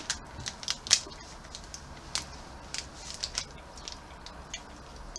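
Plastic snack package being handled: irregular sharp crinkles and clicks, the loudest about a second in.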